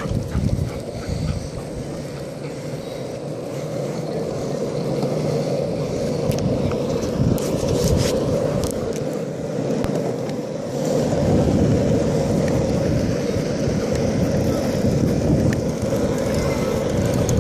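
Skateboard wheels rolling on asphalt, a steady rumble with a few small clicks from bumps in the pavement, getting louder about eleven seconds in as the board picks up speed, towed along by a running puppy on a leash.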